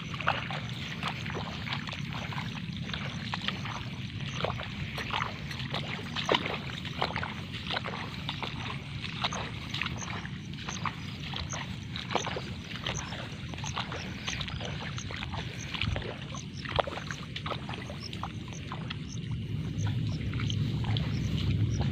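Water sloshing and splashing with irregular knocks as someone wades through a flooded rice paddy, over a steady low rumble.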